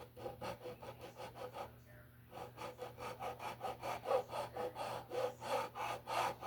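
Light, quick back-and-forth strokes of a hand abrasive rubbed over the mandolin's wood, about four or five strokes a second with a short pause about two seconds in. It is taking old glue off the surface to flatten it for re-gluing, without cutting into the thin wood.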